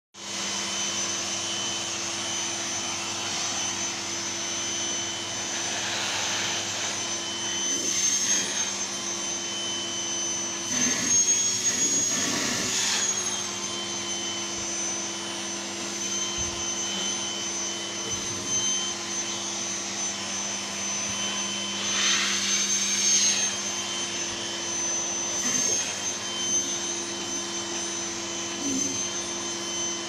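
Vacuum cleaner running steadily with a high whine, its hose nozzle being drawn over a cat's fur. A few times the sound grows louder and the whine briefly rises in pitch.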